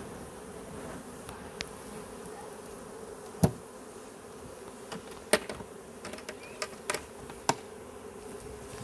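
A swarm of honeybees humming steadily around and inside a hive box as they are being hived. A few sharp taps cut through the hum, the loudest about three and a half seconds in and more between five and seven and a half seconds.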